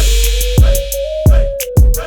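Background hip hop music: deep bass, a drum hit about every half second or so, and a synth melody line.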